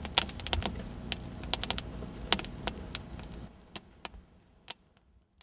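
Campfire crackling and popping with irregular sharp snaps over a low steady rumble. It fades away about three and a half seconds in, leaving a few last pops.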